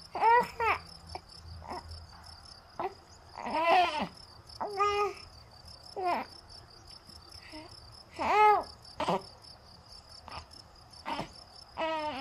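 Short, high, baby-like coos and whimpers come every second or so, some rising and falling in pitch. Under them runs a steady chirping of crickets.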